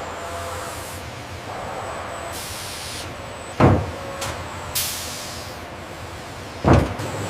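Two heavy, dull thuds about three seconds apart, heavy watermelons being set down, over a steady low rumble.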